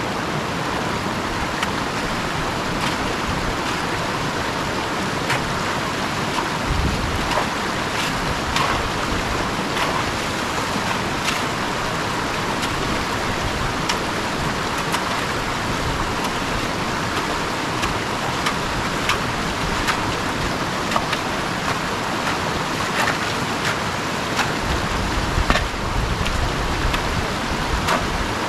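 Steady rushing of a swollen, floodwater stream running fast over rocks, with scattered faint clicks and a few low gusts of wind on the microphone.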